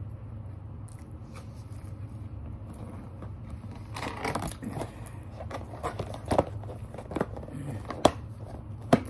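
Clear plastic drink cup and takeout container being handled: crinkling and clicking starting about four seconds in, with two sharp clicks near the end, over a steady low hum.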